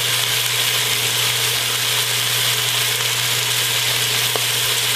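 Beef shank searing in olive oil in a deep pot on high heat, sizzling steadily over a steady low hum.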